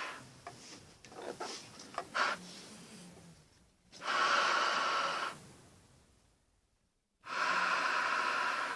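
Breathing through a GP5 gas mask fitted with a 40mm filter: two loud breaths, each about a second and a half long, one about four seconds in and one near the end, after a few light clicks of handling the mask.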